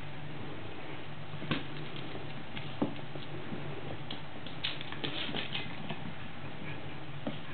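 Pomeranian puppies' claws clicking and pattering on a hardwood floor as they scramble around, in scattered taps that bunch into a quick flurry about two-thirds of the way through, over a steady low hum.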